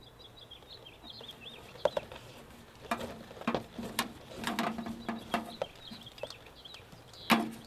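Coaxial cable being threaded through a hole in vinyl siding by gloved hands: scattered clicks, taps and rustles of the cable against the siding, more frequent from about three seconds in. Small birds chirp in the background.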